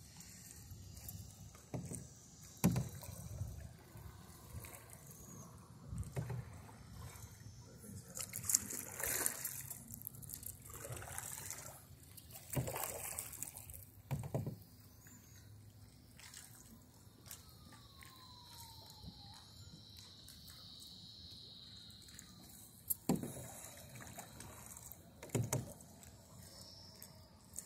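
Canoe paddling: a paddle dipping and pulling through the water every few seconds at an uneven pace, with splashes, trickling drips and the odd light knock between strokes.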